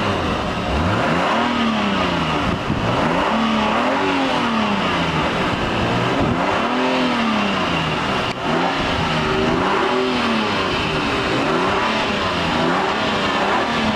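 Car engine revved over and over, its pitch climbing and falling back in repeated blips about every second or two.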